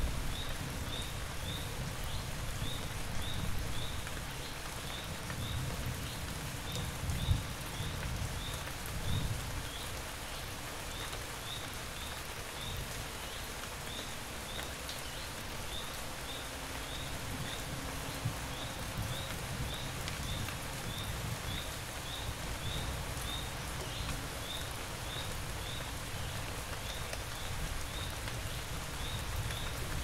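Steady rain falling, with a low rumble underneath that swells at times and a short thump about seven seconds in. A short, high chirp repeats a few times a second in runs with pauses.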